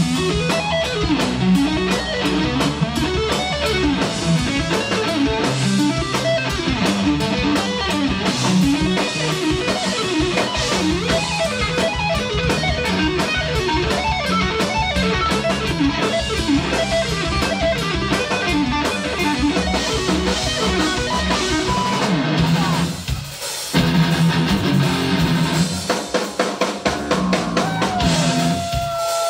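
Live instrumental rock: a Telecaster-style electric guitar played fast through an amplifier, with a drum kit behind it. The music drops out briefly about three-quarters of the way through, then resumes; near the end a guitar note bends up and is held.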